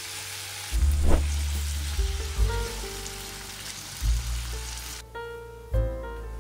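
Potato slices sizzling as they fry in oil in a nonstick pan, turned with a wooden spatula; the sizzle stops suddenly about five seconds in. Background music with piano notes and a bass line plays throughout.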